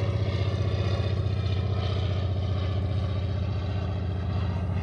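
A motorboat engine running steadily at a constant low pitch, with a fast, even pulsing.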